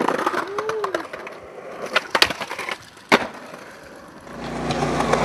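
Skateboard wheels rolling on concrete with several sharp clacks of the board, pops and landings, around the middle. A steady low hum comes in near the end.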